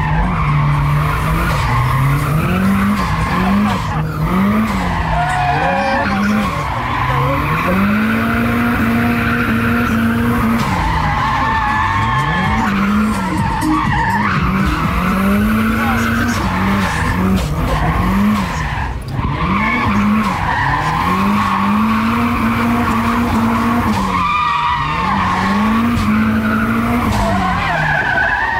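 Nissan Silvia drift car's engine revving up and down over and over, held high for a second or two at a time, with tyres squealing as it slides from one direction to the other.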